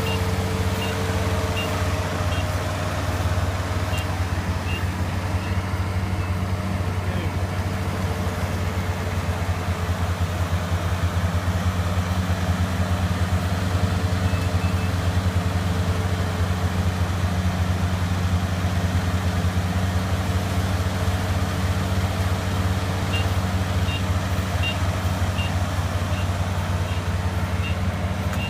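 Rice harvesting machine's engine running steadily at a low hum. A faint series of short high beeps repeats in the first few seconds and again near the end.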